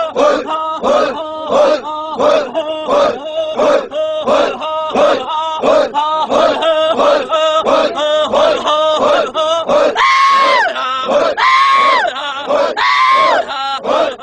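Men's voices chanting loudly in a fast, even rhythm of about two to three strokes a second, then, about ten seconds in, three long high shouted cries, each rising and falling.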